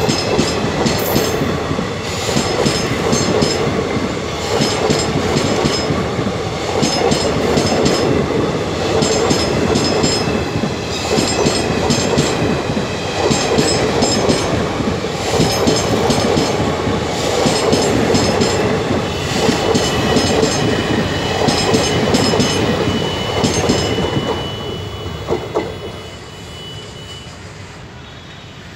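Blue Indian Railways passenger coaches rolling past at close range, their wheels beating a rhythmic clickety-clack over the rail joints. A thin high tone joins in during the second half, and the sound fades as the end of the train moves away.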